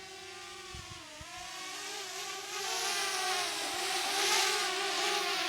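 Small quadcopter drone's propellers buzzing with a steady high whine as it flies back toward the pilot, the pitch dipping briefly a couple of times. It grows louder about halfway through, with a rushing hiss as it comes close.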